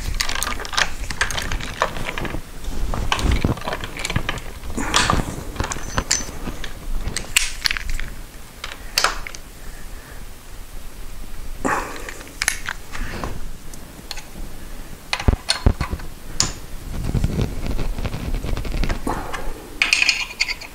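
Hand tools working on a motorcycle's front fork: irregular metallic clicks, clinks and knocks with short scraping sounds, as the fork pinch bolts are tightened.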